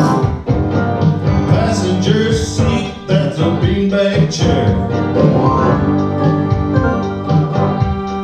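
Music: a man singing into a microphone over chords on a Casio electronic keyboard.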